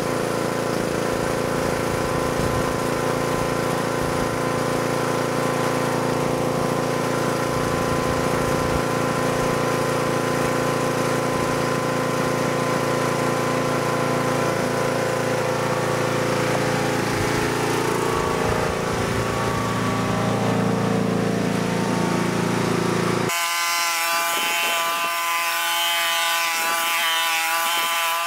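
John Deere riding mower engine running steadily while the mower is driven around with the cutting blades disengaged. Near the end the sound changes abruptly, losing its low end and becoming thinner.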